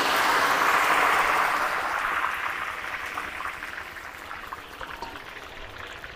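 Diced potatoes and carrots deep-frying in hot cooking oil in a large wok just after being dropped in: a hard sizzle with crackles that is loudest at first and slowly dies down.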